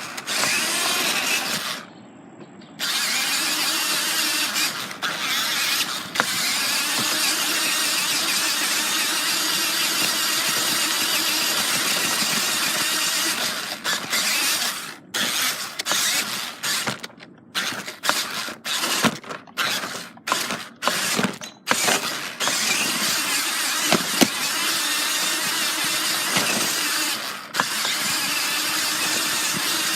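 Battery-powered RC car's motor and gears running, with its wheels rolling, heard close up from a camera taped onto the car. It runs steadily, stops and starts in quick bursts for several seconds midway, then runs steadily again.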